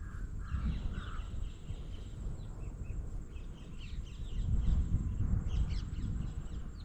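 Small birds chirping in many short, high calls over a steady low rumble of outdoor background noise, with three short lower notes about a second in.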